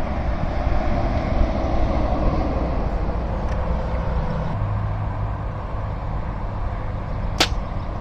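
A compound bow shot once near the end: a single sharp snap of the string and limbs on release, followed less than a second later by a fainter click. A steady low rumble of background noise runs underneath.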